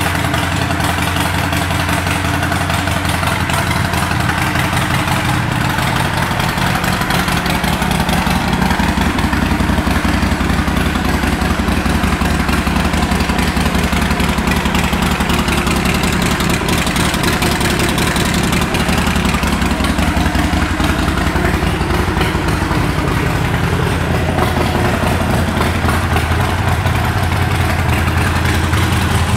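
A 2009 Harley-Davidson Sportster Nightster's 1200 cc air-cooled Evolution V-twin idling steadily through a Vance & Hines aftermarket exhaust.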